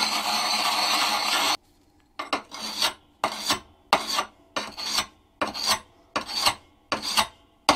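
Oiled Lansky sharpening stone rubbed against the steel edge of an old West German pick mattock blade, giving a rasping scrape. One long continuous stroke for about the first second and a half, then after a brief pause a steady run of short back-and-forth strokes, a little under two a second.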